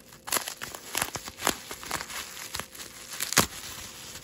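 Plastic bubble wrap crinkling and rustling as it is handled and unwrapped by hand, with irregular sharp crackles, the loudest about three and a half seconds in.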